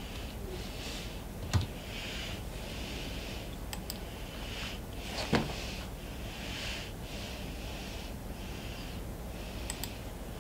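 Computer keyboard keys and mouse clicks, with a man's breathing heard as soft puffs about once a second. Two louder knocks stand out, about one and a half and five seconds in, and a quick double click comes near the end.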